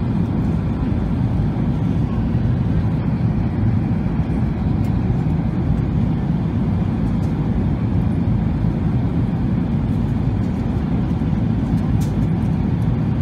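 Steady cabin noise of an Airbus A380 in flight, heard from inside by the wing: an even, low rumble of engines and rushing air.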